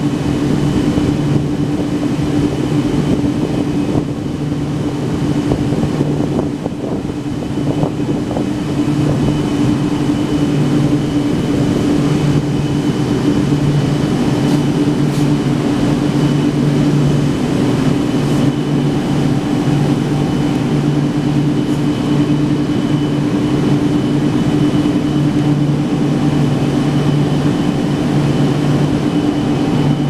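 Floor-standing air conditioner running: a steady low hum with air rushing and a faint high whine, and a lower part of the hum that swells and fades about once a second.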